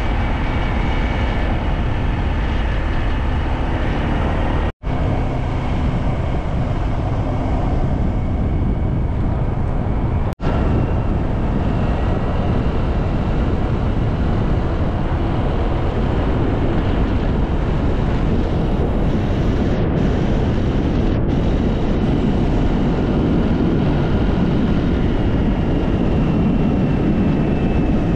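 Steady wind and road noise of a vehicle travelling along a road at speed, with the engine running underneath. The sound cuts out for an instant twice, about five and ten seconds in.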